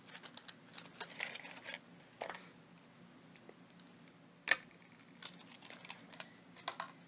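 A small cardboard dice box being cut through its tape and opened by hand: scattered light clicks and scratchy rustles, with one sharp tap a little past halfway.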